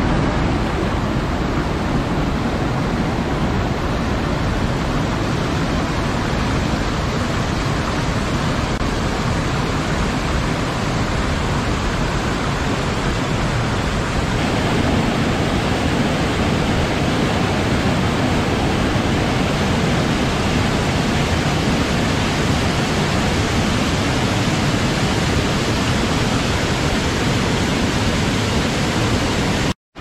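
Steady, loud rush of water tumbling over rocks in a cascading stream. The tone shifts slightly about halfway through, and it cuts off abruptly near the end.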